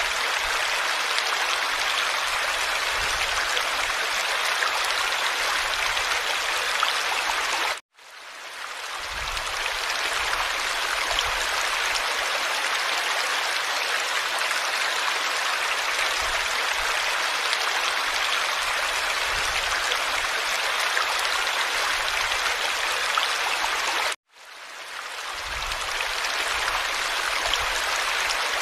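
Steady sound of flowing water, like a stream. It cuts out abruptly about eight seconds in and again about sixteen seconds later, each time fading back up over about a second, as at the seam of a looped recording.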